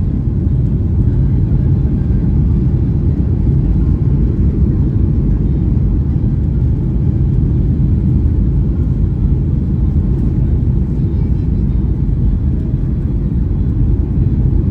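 Steady low rumble of a Boeing 737-800 airliner in flight, even throughout with no distinct events.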